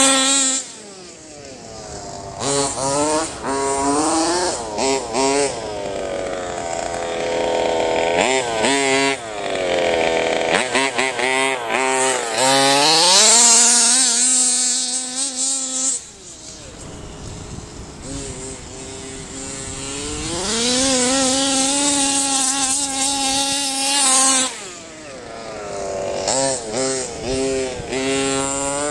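Two-stroke gas engine of an HPI Baja 5B 1/5-scale RC buggy (ported GP290 with reed case and TGN race pipe) revving hard and falling back again and again as it is driven, its pitch sweeping up and down. It drops back almost to idle about a second in, about halfway, and a few seconds before the end.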